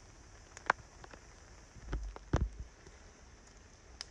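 Wood campfire crackling: a few sharp pops and snaps over a steady hiss, with a heavier knock a little past two seconds in.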